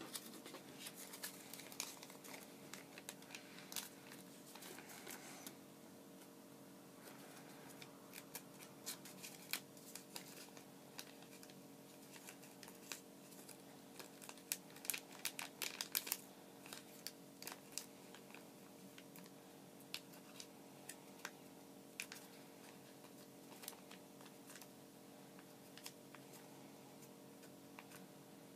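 Origami paper being folded and creased by hand: a scatter of faint crinkles and sharp paper clicks, densest around the middle, over a steady low hum.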